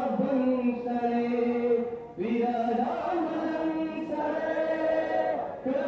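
A man singing Pashto ghazal verse in long drawn-out notes, with a short break between phrases about two seconds in.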